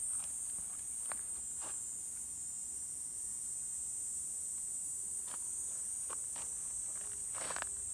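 Steady, high-pitched outdoor insect chorus, with a few brief scratchy strokes over it, the strongest shortly before the end.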